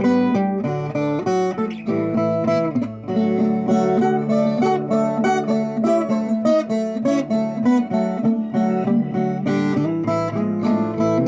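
Viola caipira, the Brazilian ten-string folk guitar, played solo: a quick run of plucked melody notes over a low note that keeps ringing.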